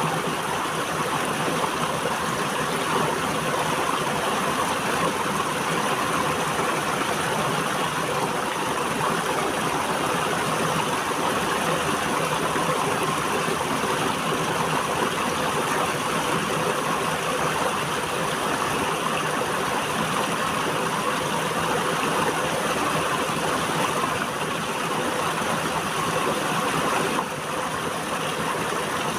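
River water flowing, a steady rushing with no breaks; the level dips slightly near the end.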